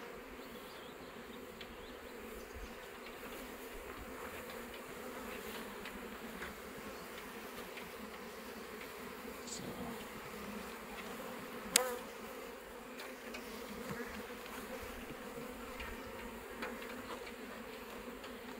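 Honeybee colony buzzing in an opened hive, a steady low hum. About twelve seconds in, one sharp click as the metal hive tool works among the wooden frames.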